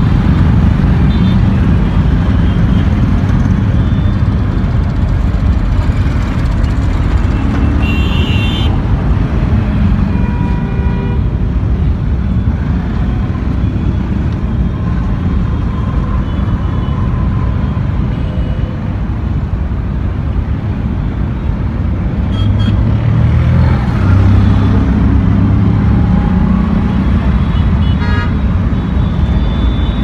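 Heavy mixed road traffic: motorcycles, scooters, cars and auto-rickshaws running past in a steady engine rumble, with several short horn honks.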